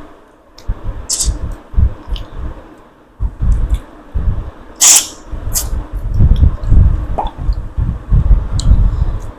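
Wet eating sounds of someone eating fish curry with rice: irregular chewing, lip smacks and slurps.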